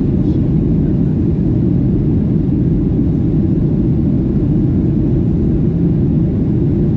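Steady, even rumble of a Boeing 737-800 in flight, heard inside the passenger cabin: engine and airflow noise, deep and unchanging.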